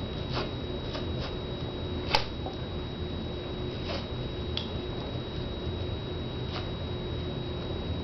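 Dog seat belt harness being handled as its straps are slid through the buckles and metal ring to enlarge a loop: soft handling noise with a few light clicks, the sharpest about two seconds in.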